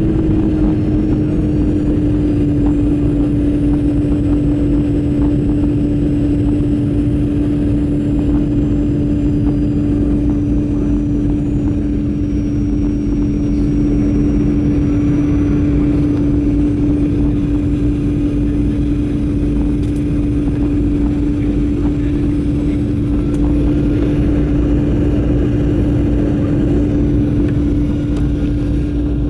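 Boeing 737-900ER in flight on approach: the steady rumble of airflow and its CFM56-7B turbofan engines, with a strong, even engine hum.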